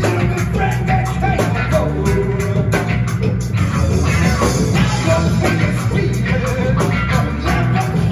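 Live psychedelic rock band playing loud and full through a club PA: electric guitar lead lines bending over bass and pounding drums, with no vocals. This is an instrumental stretch of the song.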